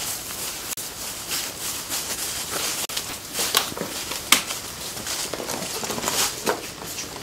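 Irregular rustling with scattered sharp clicks and knocks, the sharpest a little past four seconds in: footsteps through long grass, then a tackle bag and plastic lure boxes being handled.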